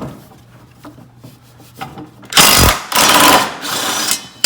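Impact driver with a 1-inch socket hammering loose a riding mower's blade nut. It runs in one loud burst of about two seconds starting a little past halfway, after some faint clicks, and a second short burst starts right at the end.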